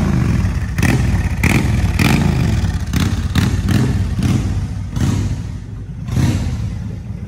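Honda VTX 1300C's V-twin running through long drag-style exhaust pipes, with the throttle blipped repeatedly in short, uneven surges.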